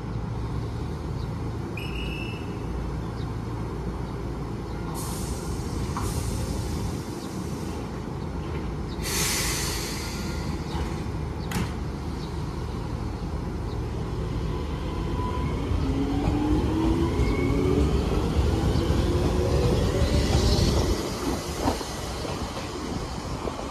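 Red Enshu Railway electric trains at a station: short hisses of compressed air from the brakes, then a train pulling away, its motor whine rising in pitch over the wheel rumble. It is loudest as the train passes close, and falls off near the end.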